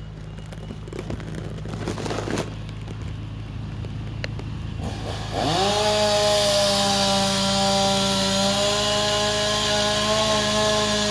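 Chainsaw running at a low idle, then revved sharply about halfway through and held at high speed with a steady whine.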